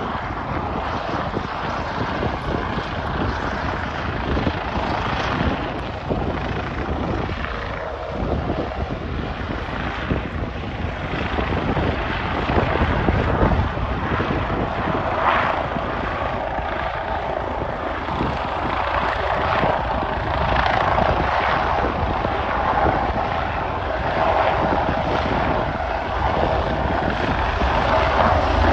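Bell 429 twin-turbine helicopter hovering low, with continuous rotor and turbine noise. A steady hum comes in about halfway, and the sound grows a little louder near the end.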